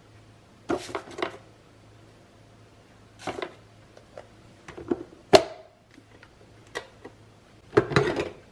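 Objects being handled at close range: a string of short rustles and taps, a sharp click about five seconds in, and a longer rustle near the end, over a faint steady hum.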